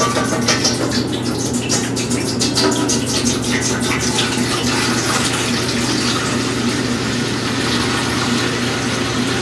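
Water glugging out of a plastic jug as it is poured into a large stainless steel stockpot. The glugs are sharpest in the first few seconds, then the pour runs on more evenly.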